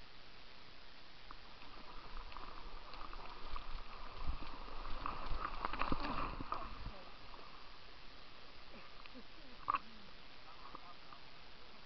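Low rumbling handling noise on the camera microphone for a few seconds midway as the camera is swung about, over a faint steady background hiss. A single sharp knock comes near the end.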